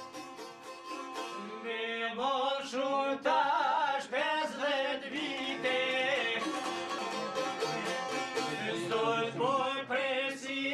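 A man sings an Albanian folk song in a wavering, ornamented voice to his own accompaniment on a plucked two-stringed çifteli. The çifteli plays alone at first, and the voice comes in about two seconds in.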